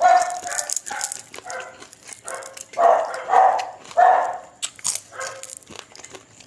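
A dog barking repeatedly, about eight short, high barks, loudest in the middle, with small clicks of eating in between.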